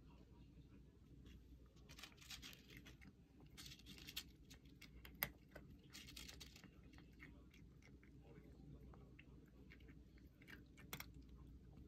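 Faint sound of a cat chewing and crunching dry kibble, in short bursts of crackly crunches with a few sharper clicks.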